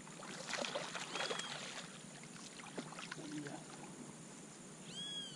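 Water splashing at a pond's surface as a hooked traíra thrashes on a hand-rod line, a flurry of splashes in the first second or two, then quieter water movement. A short high chirp near the end.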